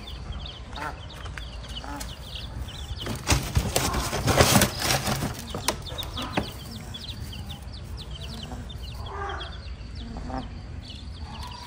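Newly hatched chicks peeping steadily around a brooding hen, many short high cheeps overlapping, with a louder burst of rustling in the straw about three to five seconds in.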